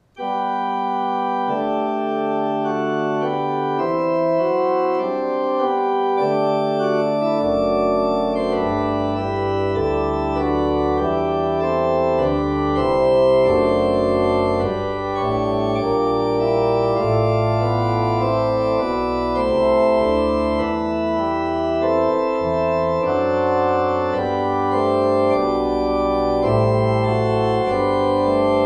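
Organ music played on a two-manual organ console: sustained chords, with a pedal bass line coming in about seven seconds in.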